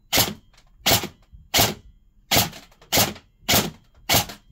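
Cyma Platinum SR25 airsoft electric rifle firing single shots of 0.40 g BBs through a chronograph, seven sharp shots about 0.7 s apart. The rifle is still stock, a baseline test that reads about 280 fps, about 1.53 joules.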